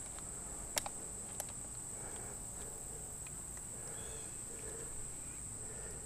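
Insects giving a steady, high-pitched drone in the background, with two short clicks about a second in.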